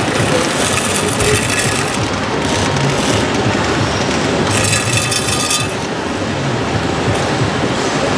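RC model Toyota forklift driving and pushing dirt with its bucket: small drive and gearing whirring, with dirt scraping over the floor, against a steady background noise.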